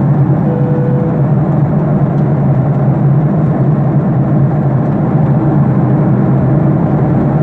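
Steady cabin noise of a jet airliner in flight: the constant drone of the engines and rushing air, with a strong low hum.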